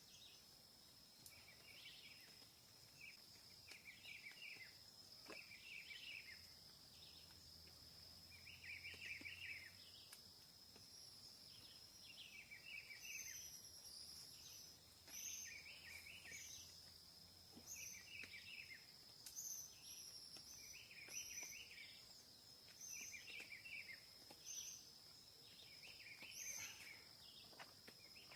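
Faint forest ambience: a steady high-pitched insect drone, with short bursts of chirping calls repeating about every second and a half.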